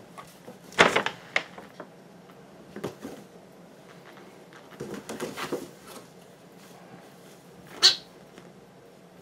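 Kittens play-fighting, giving a few short cries and squeaks in separate bursts: a cluster about a second in, more around five seconds, and one sharp cry near the end.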